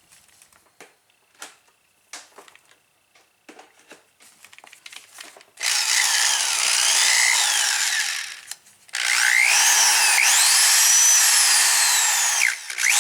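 A few faint handling clicks, then the DeWalt DW103 3/8-inch corded drill's brushed motor is test-run after a cord replacement and works. Its whine rises and falls with the trigger, stops for about half a second, then spins up again and runs on with a brief dip near the end.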